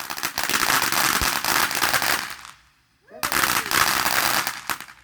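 Consumer firework crackling, a dense rapid string of small bangs in two bursts of about two seconds each, each stopping abruptly.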